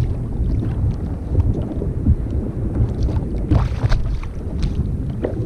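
Wind buffeting the microphone in a steady low rumble, over sea water around a kayak. About three and a half seconds in there is a brief, sharper noisy burst.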